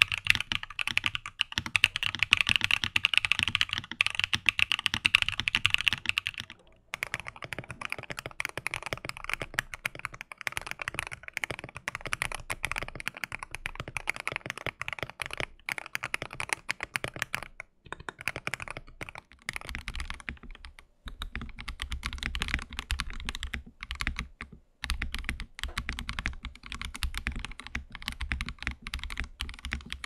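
Fast typing on mechanical keyboards fitted with AKKO keycaps: a continuous clatter of keystrokes on three different boards in turn, the character of the clack changing about a fifth of the way in and again about two-thirds in, the last board with more low thud. The keycaps give a higher-pitched, hollow-ish clack.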